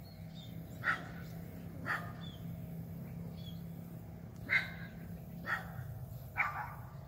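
A dog barking: five short single barks spaced about a second apart, over a steady low hum, with a few faint bird chirps.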